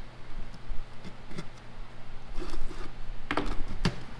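Cardboard shipping box being cut open and unfolded by hand: scattered light scrapes and taps of the cardboard and packing tape, with a few louder, sharper scrapes about three and a half seconds in as the flaps are pulled open.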